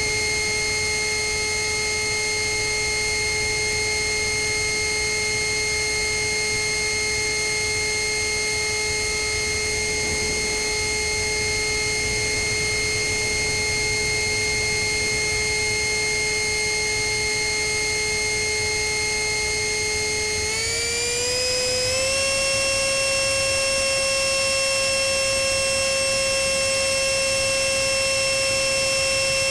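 A 64 mm electric ducted fan (GWS fan unit driven by a Cyclone Power CP400 brushless motor) whines steadily in flight, heard close up from the aircraft itself over a low rush of air noise. About twenty seconds in, the whine rises in pitch over a second or two as the throttle is opened, then holds steady at the higher pitch.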